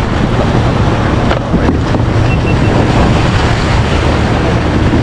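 Boat's outboard motor running steadily underway, with wind buffeting the microphone.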